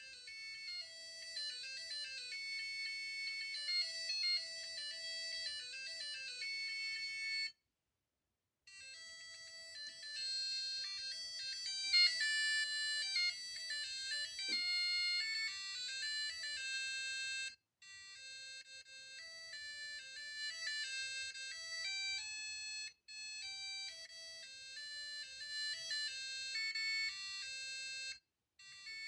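Digital alarm clock's built-in alarm melodies: thin electronic beeper tunes, played one after another. Each stops abruptly before the next begins, with short breaks between them.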